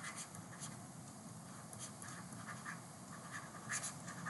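Faint scratching strokes of a stylus writing on a pen tablet: a string of short, quick strokes, a little louder near the end.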